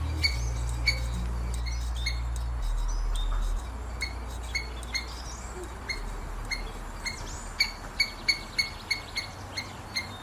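Squirrel chirping: a series of short, sharp calls, about two a second, coming faster in the second half.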